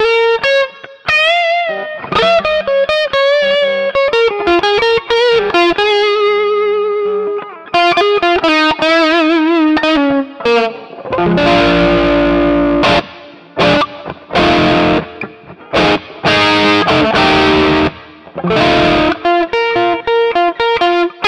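Electric guitar played through a Mooer GE200 multi-effects unit on a blues preset with an 808 overdrive at zero gain and a spring reverb. It plays single-note licks with string bends and vibrato, then a run of strummed chords about halfway through, then single notes again near the end.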